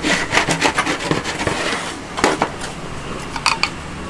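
Irregular clattering and knocking of utensils and cookware during food preparation, a dense run of sharp knocks in the first two seconds and scattered ones after.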